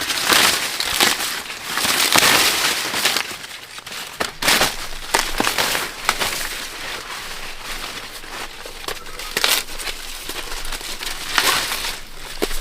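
Dry corn husks and leaves rustling and crackling as they are handled, with frequent sharp snaps at irregular moments.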